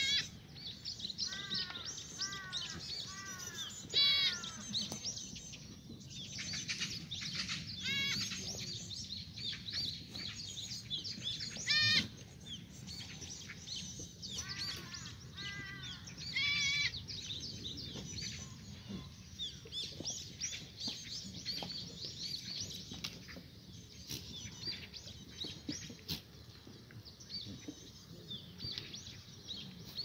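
Korean black goats bleating a few times, with songbirds chirping steadily throughout.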